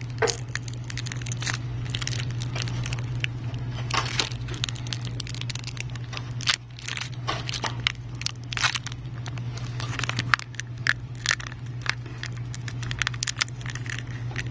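Thin clear plastic film being peeled and crinkled off a phone's screen assembly by hand, giving irregular crackles throughout. A steady low hum runs underneath.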